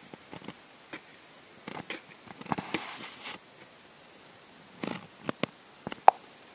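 Irregular scrapes and knocks of a long-handled hand tool working dry soil, with a longer scraping rustle about halfway through and a sharp knock near the end.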